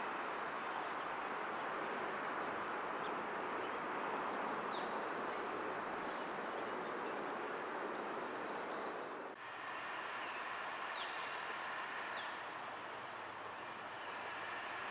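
Outdoor ambience: a steady rushing background noise with high, buzzing trills repeating every few seconds, each lasting a second or two, and a few short falling chirps.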